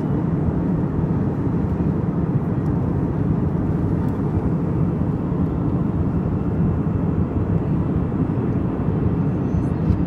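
Jet airliner engines, a steady low rumble.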